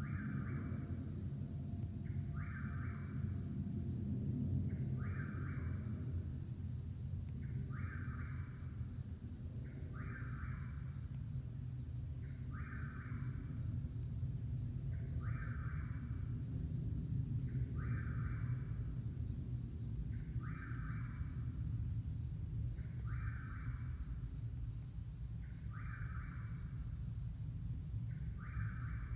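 Low, steady rumble of a Boeing C-17A Globemaster III's four turbofan engines climbing away after takeoff. Over it, night insects: a continuous high cricket trill and a buzzy call repeating about every two and a half seconds.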